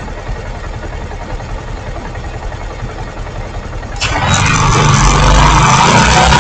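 Motorcycle engine idling at a stop, then about four seconds in the throttle opens and it revs up, much louder, as the bike pulls away.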